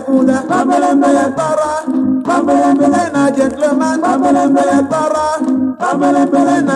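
Nigerian highlife band music playing from a 1979 vinyl LP: a steady beat with percussion and voices singing, briefly thinning out about six seconds in.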